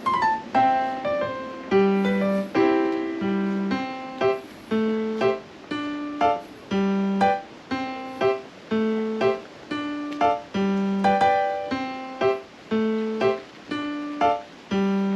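Background music: a light piano tune with notes struck in a steady rhythm over a repeating bass line.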